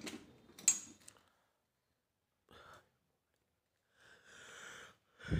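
A single sharp click about a second in, as a bolt is handled against the metal chandelier frame, then a soft breath-like hiss near the end.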